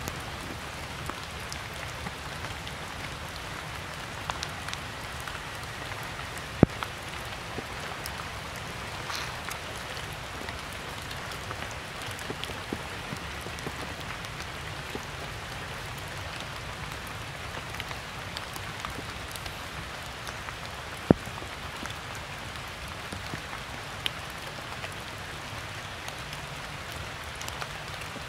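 Steady rain falling on stones, leaves and puddles, with many small scattered drop ticks. Two much louder sharp taps stand out, one about a quarter of the way in and one about three quarters of the way in.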